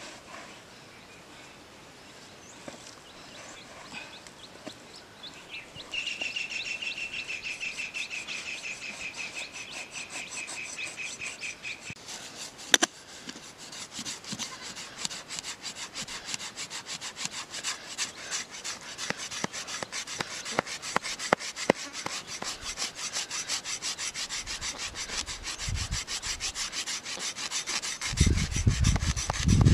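Blade scraping the skin of a whole fish in rapid back-and-forth strokes, starting about six seconds in and going on steadily, with a few low bumps near the end.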